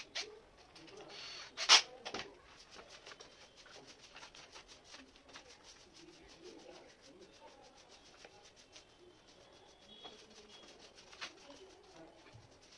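Wooden slats of an IKEA LÖNSET slatted bed base clicking and knocking in their holders as they are handled, with one loud clack about two seconds in.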